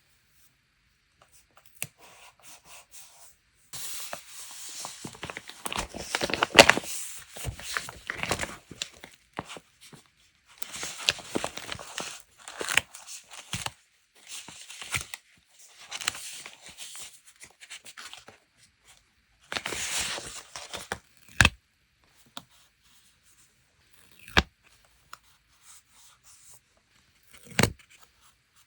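Paper being handled and torn in several rustling stretches of a second or more, followed by three sharp taps spaced a few seconds apart.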